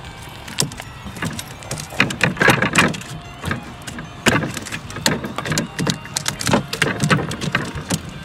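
Irregular knocks, taps and short scrapes against the wooden hull and floor of a canoe, a few a second.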